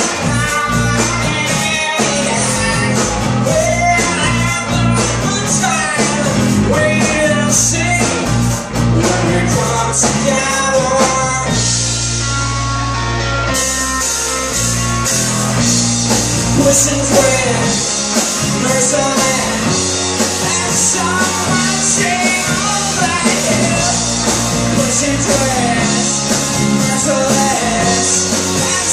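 Rock band playing live: electric guitar, electric bass and drum kit, with a male lead vocal. About twelve seconds in the band thins out for a couple of seconds, then the full band comes back in at once.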